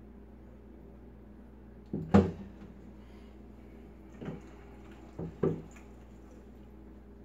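Black stoneware slow-cooker crock set down in a stainless steel sink with a loud double clunk about two seconds in, followed by a few softer knocks as the stuffed turkey is picked up and handled beside it.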